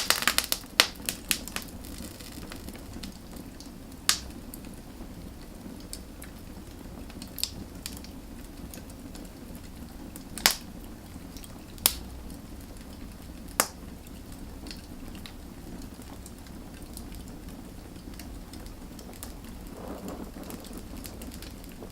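Wood fire burning, with a steady low rumble from the flames under sharp crackles and pops. A quick run of pops comes at the start, then single pops every few seconds.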